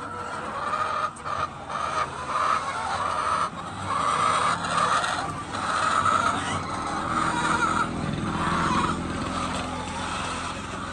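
Many hens in a poultry house clucking and calling, with a steady machine hum underneath that grows louder about halfway through.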